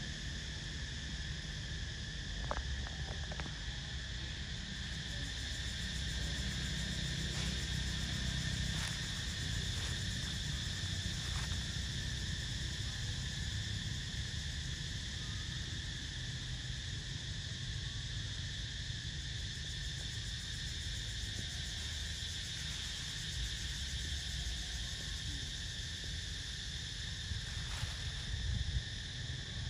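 Steady, unbroken drone of insects, with a low rumble underneath and a few faint ticks.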